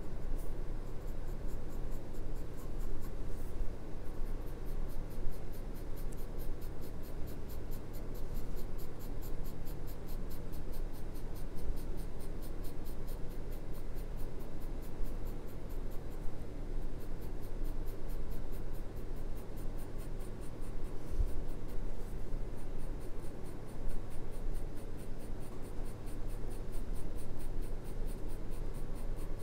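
Graphite pencil scratching steadily across drawing paper in continuous shading strokes, over a steady low hum.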